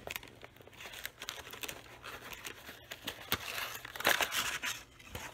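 Paper being handled, rustling and crinkling in irregular bursts, loudest about four seconds in.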